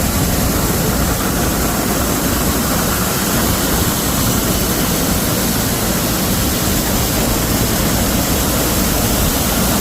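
Steady, loud rushing noise of a 10-inch grain bin unload auger running, with dry corn pouring out of it.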